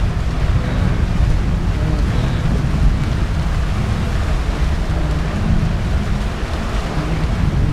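Wildebeest herd splashing and churning through a river in a steady, loud rush of water, with a deep rumble underneath.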